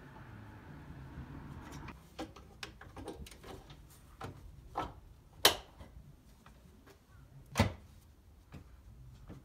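Headlight unit being handled and fitted into a Suzuki Wagon R's front end: a series of light plastic clicks and knocks, with two sharper knocks a couple of seconds apart.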